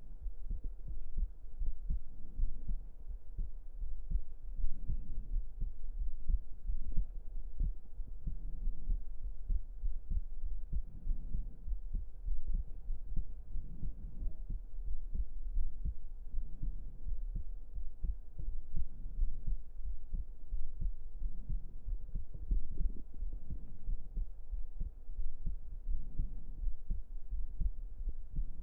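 Human heartbeat picked up close up against the chest, a steady run of low, muffled beats over a low rumble.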